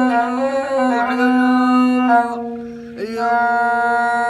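A man singing a Bedouin melody with a rababa, the one-string bowed fiddle, holding long notes under the voice. The sound thins briefly past the middle, then a long steady note comes in.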